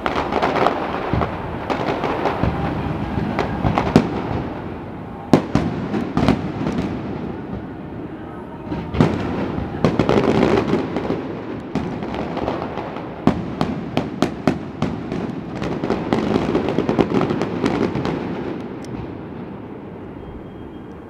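Aerial fireworks display: a dense barrage of shell bursts, with sharp bangs and continuous crackling. It thins out and fades over the last few seconds.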